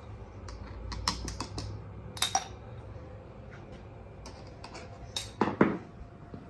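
Light, scattered clicks and clinks of a scooter wheel and tools being handled while soapy water is put around the tire, with a louder knock about two seconds in and a double knock near the end.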